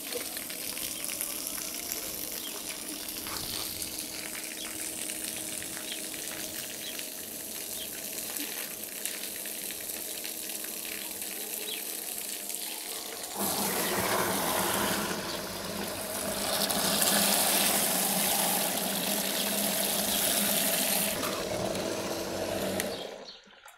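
Dishwasher pump, rigged as a water pump under a bucket, humming steadily while its jet of water from the drain hose hisses and splashes onto paving stones. The water noise gets louder about halfway through and stops suddenly near the end.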